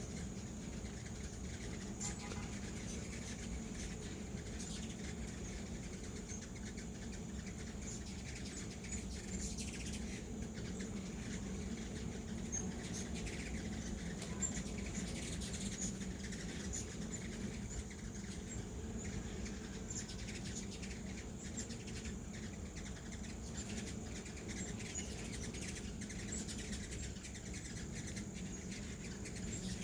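Hummingbirds at feeders: scattered short, high, squeaky chirps and chips, over a steady low hum.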